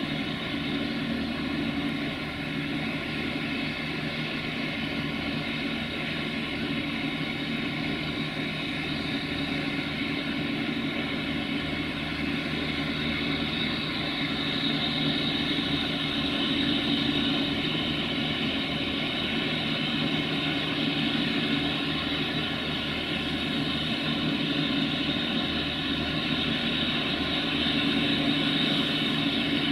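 V class 4-4-0 compound steam locomotive blowing off steam, a steady roaring hiss that swells a little about halfway through and again near the end.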